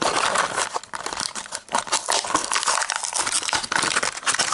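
Packaging crinkling and tearing by hand, a dense run of small crackles, as a diecast car is unpacked.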